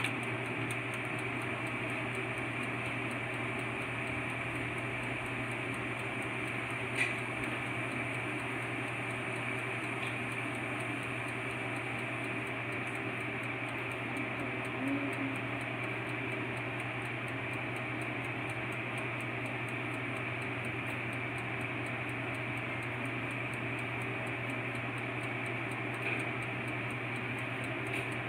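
Black & Decker toaster oven baking: a steady hum with the even ticking of its timer, and a few faint clicks.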